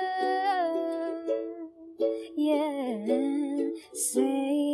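Music: ukulele playing with a singer holding a long note, then a short sung phrase that dips in pitch about halfway through.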